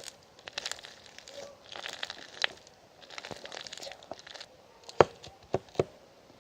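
Crinkling and rustling of packaging in several short bouts, then three sharp clicks or taps about a second apart near the end.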